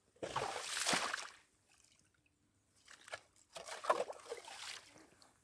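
Water and slush sloshing on lake ice in two bursts, each about a second long, roughly three seconds apart.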